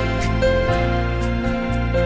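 Instrumental background music: held chords over a steady bass, with a light tick about twice a second.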